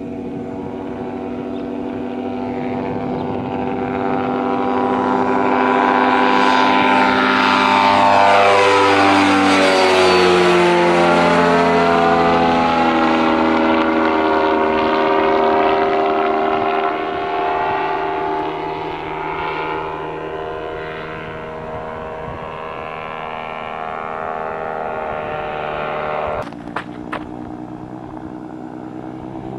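Titan Tornado ultralight's propeller engine at full power on takeoff, growing louder as the plane climbs toward and past overhead, its pitch dropping as it goes by, then a steadier drone as it draws away; the pilot reports the engine was running past redline on takeoff. Near the end the sound changes abruptly, with a few sharp clicks.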